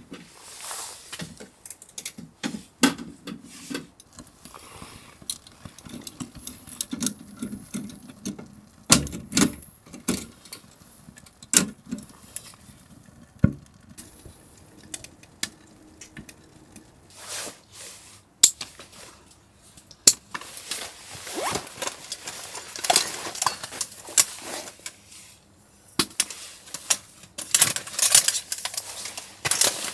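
Camp cookware and gear being handled: scattered light clinks and knocks with stretches of rustling, and one heavier low knock about halfway through.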